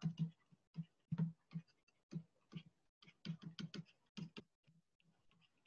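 Faint, irregular taps and clicks of a stylus on a tablet as words are handwritten, a quick uneven run of small knocks that thins out near the end.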